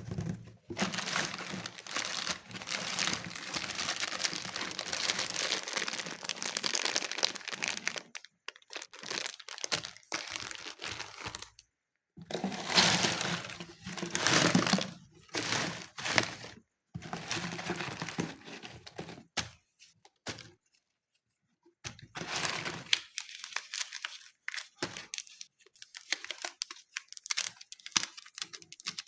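Slime and clay being squeezed and worked by hand in a series of short clips: dense runs of small crinkling clicks and squishes, broken by brief silent gaps between clips.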